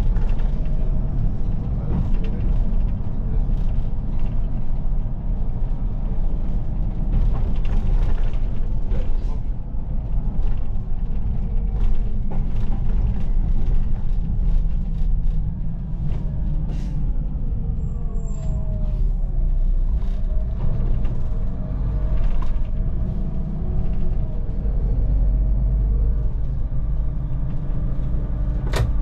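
Solaris Urbino 12 city bus driving: a steady low engine and road rumble, with a drivetrain whine that glides down in pitch several times in the second half. A short high beep sounds a little past halfway, and a sharp click comes near the end.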